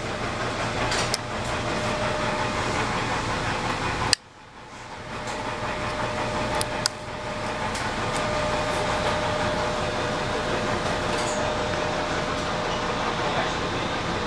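Sharp clicks from the switches and contactor on a home-built test board for a Curtis golf-cart motor controller, about a second in, four seconds in and near seven seconds, the middle one the loudest. Under them runs a steady mechanical whirring hum that drops suddenly after the loud click and comes back up over a few seconds.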